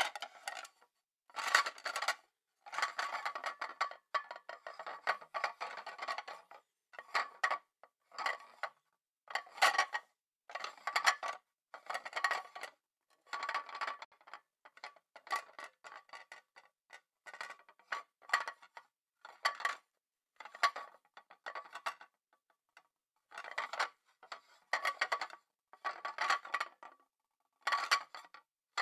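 Crockery, cutlery and glasses clinking and clattering in short irregular clusters every second or two, with a recurring ringing note from struck dishware.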